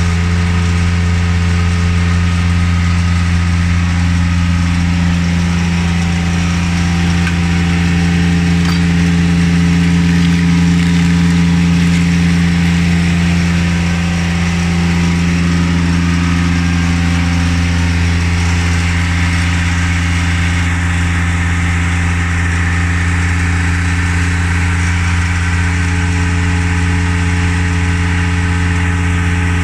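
A machine or engine running steadily at a constant speed, a loud low hum with a hiss over it that hardly changes.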